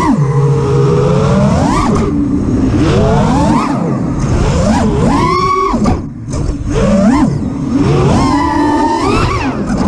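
Armattan Rooster FPV quadcopter's brushless motors and propellers whining, heard from the onboard camera, the pitch swooping up and down sharply with repeated throttle punches. The level dips briefly about six seconds in as the throttle is chopped, then the whine surges back.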